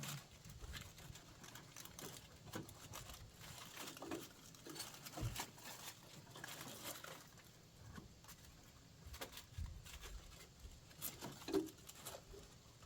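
Scattered light clicks and small metal taps of hand work on a riding mower's deck linkage, with a sharper knock near the end.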